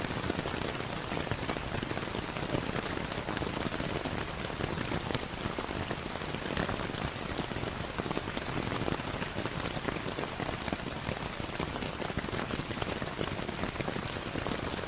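Steady rain, dense drops pattering on a surface, even and unbroken.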